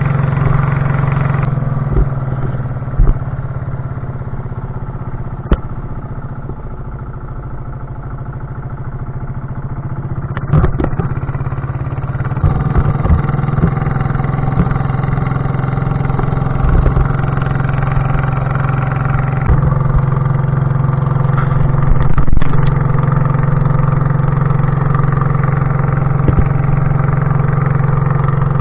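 A small engine running steadily with a low hum, easing a little and then picking up again, with a few knocks and rattles.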